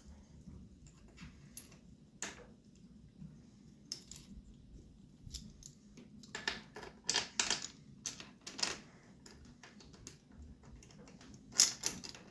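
Light metal clinks and rattles of bolts and engine-mount brackets being handled and fitted to a dirt bike, scattered at first and busiest past the middle and again near the end.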